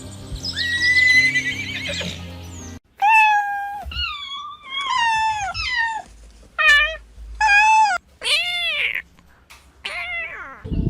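A series of short, pitched animal calls, about eight in all, several arching or sliding down in pitch. Background music plays under the first few seconds.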